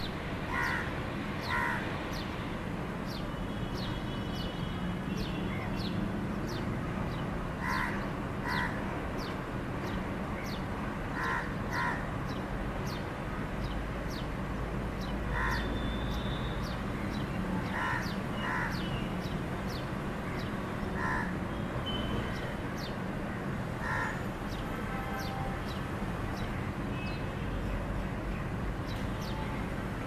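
House sparrows chirping: many short, high, quickly falling chirps throughout. Every few seconds a louder, lower call from another bird sounds, often twice in quick succession, over a steady background hum.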